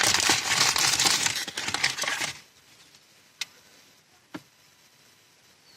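Packaging rustling and crinkling as a new ignition coil is unwrapped, stopping about two and a half seconds in, followed by two small clicks about a second apart.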